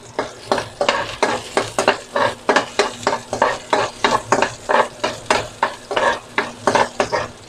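Metal spoon stirring and scraping onion and garlic around a nonstick wok, about four quick strokes a second, over the sizzle of them frying in oil.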